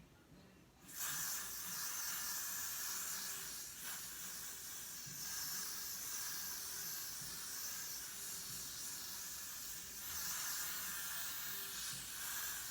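Aerosol Got2b Glued freeze spray hissing steadily as it is sprayed along the hairline to hold a wig, starting about a second in and held down almost without a break.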